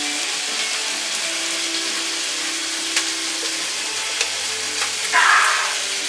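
Venison burger patties sizzling steadily in a frying pan, with a few small clicks and a short, louder hissing burst about five seconds in.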